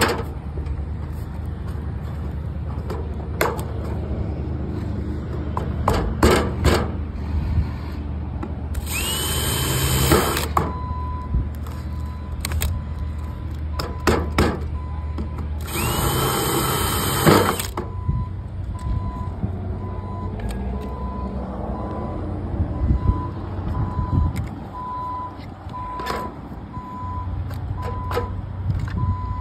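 DeWalt cordless drill run twice against the sheet-metal ridge cap, each burst about a second and a half and opening with a rising whine. Sharp metallic knocks and clicks come from handling the panel in between. From about a third of the way in, a vehicle's reversing beeper beeps steadily over a low engine rumble.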